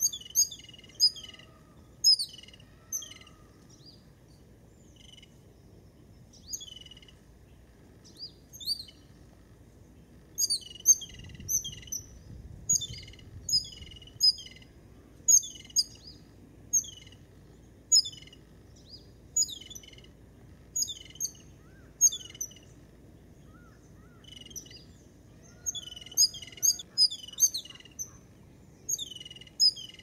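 Jungle babblers calling: short, high, squeaky chirps, some single and some in quick runs of several, with brief pauses between bursts.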